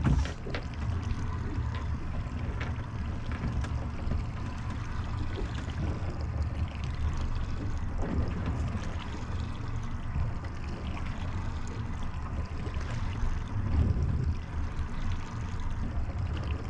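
Water lapping and splashing against a small boat's hull over a steady low rumble, with faint scattered ticks and knocks.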